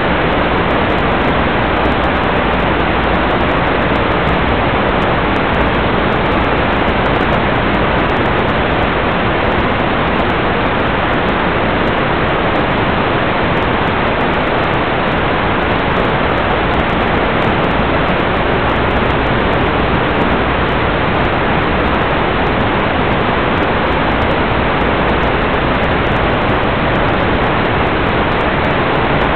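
Steady, loud hiss of static from an analog FPV video receiver's audio channel, with no motor or other sound carried on it.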